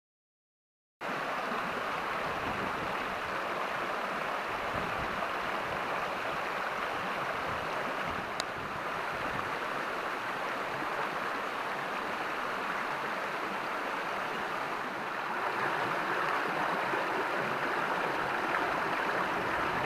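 Water of a stream rushing steadily, starting suddenly about a second in, with a single faint click about halfway through.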